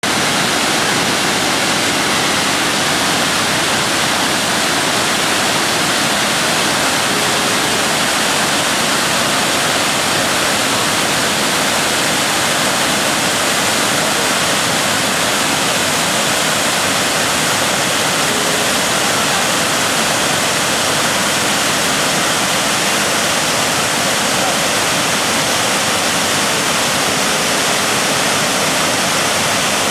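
Tahquamenon Upper Falls, a broad river waterfall, rushing steadily and loudly without a break.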